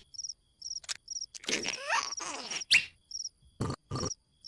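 Cartoon cricket sound effect chirping in short, regular high-pitched bursts. A few brief squeaky cartoon vocal noises sliding down in pitch and two short knocks fall between the chirps.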